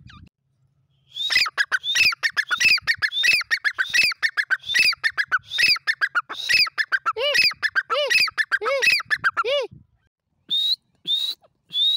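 Grey francolin (teetar) calling: a fast run of repeated arching notes for about eight seconds, the last few with a deeper arching note, then three short high notes near the end.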